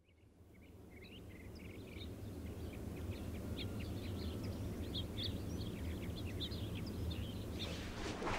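Ambient sound fading in from silence: a steady low room hum with small birds chirping outside, a string of short scattered chirps. Near the end, sharp rustling and clatter come in as someone moves through the room.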